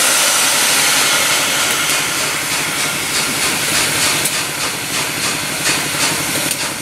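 LMS Princess Coronation class four-cylinder Pacific steam locomotive 46233 'Duchess of Sutherland' giving off a loud, steady hiss of steam, which escapes low at the front by the cylinders.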